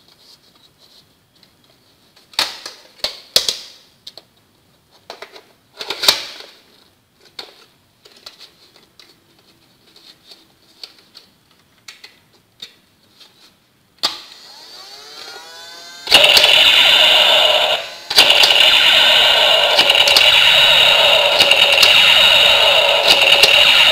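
Plastic clicks and rattles as foam darts are pushed into a plastic magazine and the magazine is handled. The battery-powered Super Storm semi-auto soft-bullet toy gun then switches on: a sudden gliding whir, then loud, steady electronic shooting sound effects that break once briefly and stop just before the end.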